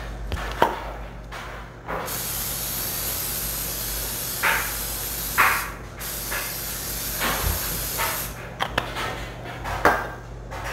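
Aerosol cooking spray hissing steadily over a loaf pan in two long sprays, the first about four seconds and the second about two, with a short pause between. A few sharp knocks and clicks from handling the can and pan come before, during and after.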